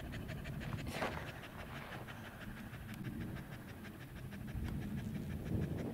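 A dog panting fast and steadily, overheated on a hot walk, with a low rumble of wind or movement beneath and a brief sharp knock about a second in.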